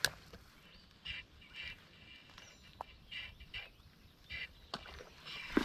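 A bird calling in short, faint, separate calls, about half a dozen of them, with a single sharp click at the very start.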